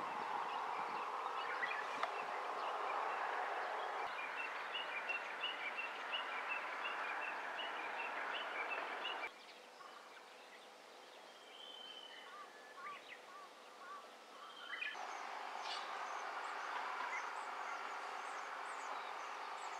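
Outdoor rural ambience: small birds chirping in short repeated calls over a steady background hiss. The background drops away abruptly about halfway through and returns a few seconds later.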